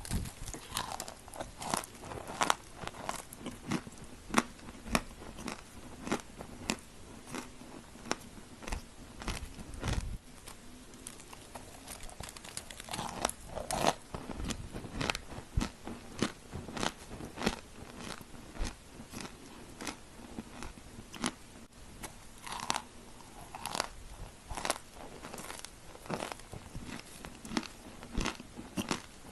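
Edible chalk cookie being bitten and chewed close to the microphone: dense, irregular crunching and crackling, with sharper, louder bites every few seconds.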